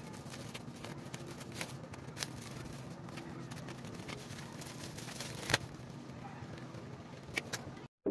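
Black plastic bag crinkling and rustling as it is handled, with scattered small clicks and one sharper click about five and a half seconds in, over a faint steady low hum.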